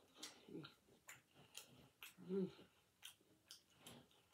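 Soft close-up chewing with many small mouth clicks and smacks, and a brief hummed sound about two seconds in.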